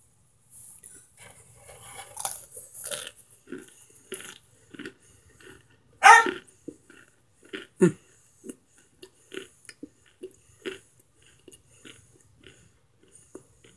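Crumbling and crunching of microwaved Argo cornstarch chunks. It opens with a crackling rustle as the chunks are broken apart, then goes on as a series of short crunches, about one or two a second, with two louder ones a little past the middle.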